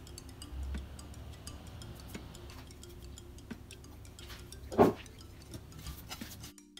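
Soft background music with a steady ticking beat, and one short knock just under five seconds in.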